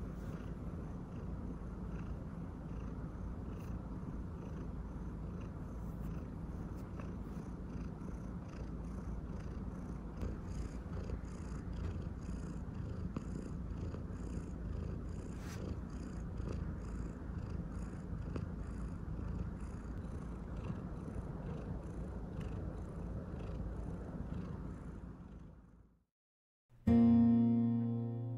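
Adult Maine coon cat purring steadily, close to the microphone: a continuous low rumble. Near the end the purring fades out and, after a brief silence, acoustic guitar music starts.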